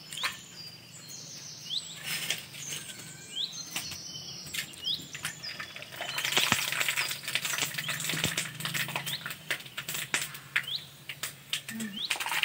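Raw potato slices sizzling and crackling in hot oil in a wok, starting about six seconds in and becoming the loudest sound, with a few clinks of a metal slotted spoon. Small birds chirp in the background with short falling calls, mostly before the sizzling starts.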